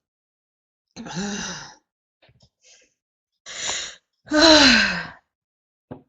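A woman sneezing repeatedly in a fit, with gasps between the sneezes: three short bursts separated by silence. The loudest comes about four and a half seconds in, her voice dropping in pitch through it.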